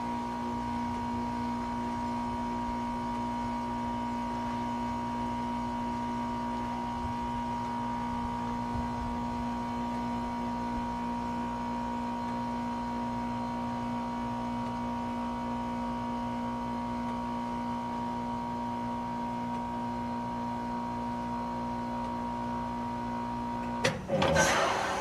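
A 2019 Goodman heat pump's outdoor unit runs in defrost with a steady, even hum. Near the end the hum cuts off and a sudden loud rush of refrigerant follows as the reversing valve shifts back, ending the defrost cycle.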